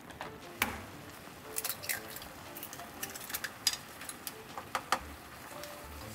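A pot of spicy broth with rice and a raw egg simmering on the stove: irregular small bubbling pops and liquid sounds, with a few sharper clicks scattered through.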